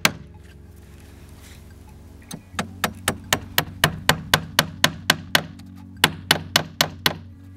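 Claw hammer driving a 2¼-inch galvanized casing nail through pre-drilled pine tongue-and-groove siding, most of the way in. It is an even run of sharp blows, about four a second, starting about two seconds in, with a brief pause partway through.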